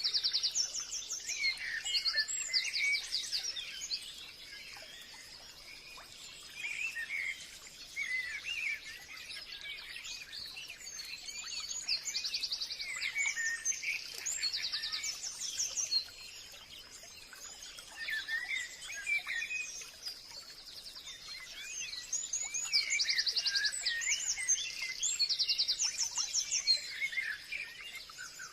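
Forest birds singing and calling together: rapid high trills repeat every few seconds over a mix of shorter chirps and whistles.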